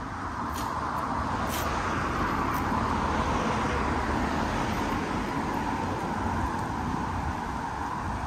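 Street traffic: a passing car's tyre and engine noise over a low rumble, swelling to its loudest about three seconds in and easing slightly after.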